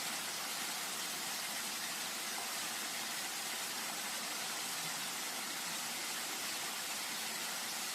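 Steady, even rush of flowing river water, a continuous hiss with no breaks.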